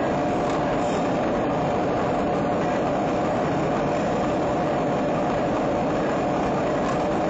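Steady running noise of a copper-plated welding wire line: an electric-motor, belt-driven take-up spooler winding copper-plated steel wire onto a spool, with a constant faint hum under the din.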